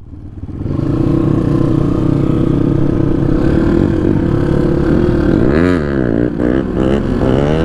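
Dirt bike engine running steadily while riding, coming up in level over the first second, with quick throttle blips that rise and fall in pitch about two-thirds of the way through.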